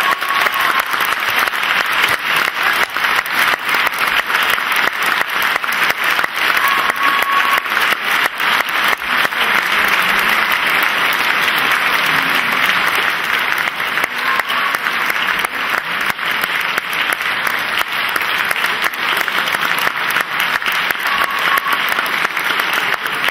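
A theatre audience applauding at length, a dense, even ovation of many hands greeting the end of an opera aria.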